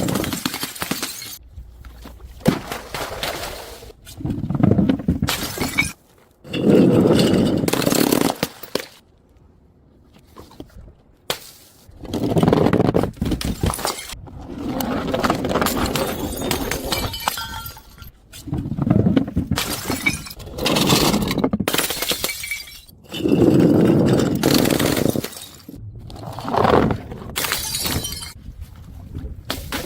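Glass bottles smashing and being crushed, one after another: a dozen or so loud crashes with crunching, several with a brief glassy ringing after them.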